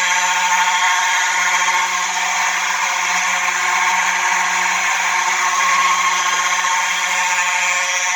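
Two Simplex 4903-series electromechanical horns sounding together in one continuous, steady, loud tone, the two horns at nearly the same pitch.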